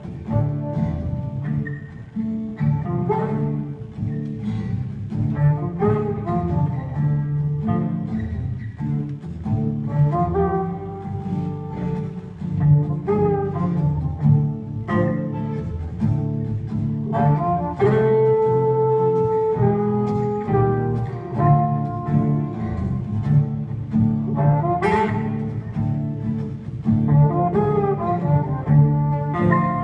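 Live acoustic band playing an instrumental break: a harmonica plays lead with long held notes over two strummed acoustic guitars, with no singing.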